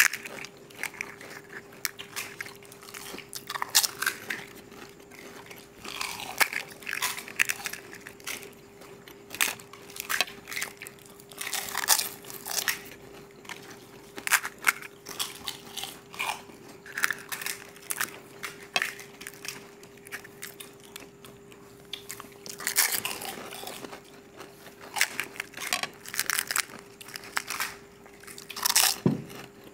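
Pani puri being eaten: crisp fried puri shells bitten and crunched, with chewing between the irregular crunches, which come in quick clusters.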